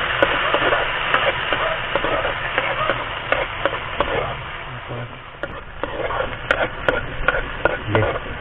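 Chopped vegetables sizzling in oil in a wok while a metal spoon stirs them, scraping and clicking against the pan; the clicks come more often in the second half.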